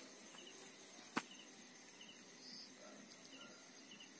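Near silence with faint insect chirping at night: a short, high chirp about every half second. There is one sharp click about a second in.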